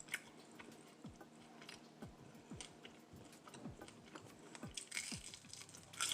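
Faint close-up chewing of crispy fried chicken, with scattered soft crunches and mouth clicks.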